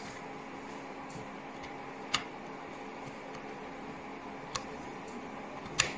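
Three small, sharp clicks, about two seconds in, about four and a half seconds in and near the end, as a small metal screwdriver taps and presses on the brass contacts and plastic housing of an opened Schneider Electric Unica light switch.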